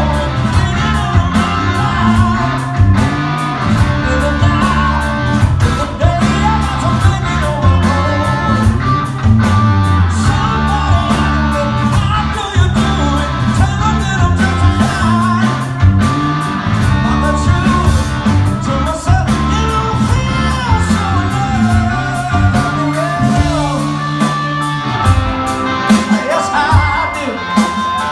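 Live rock band playing loud: a male lead singer over electric guitars and a steady drum-kit beat.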